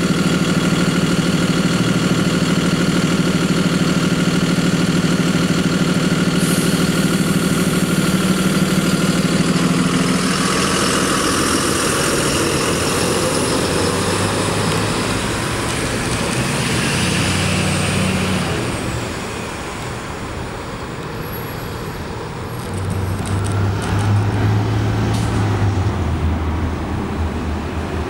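Gillig Advantage Low Floor diesel-electric hybrid transit bus idling at the curb, then pulling away about ten seconds in, its engine note rising and a high whine rising and falling as it leaves. Near the end another bus's engine grows louder as it approaches.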